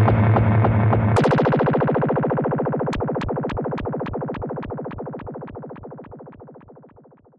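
Surf rock instrumental ending: the full band with its bass stops about a second in, leaving a ringing chord that pulses about four to five times a second and fades away to nothing.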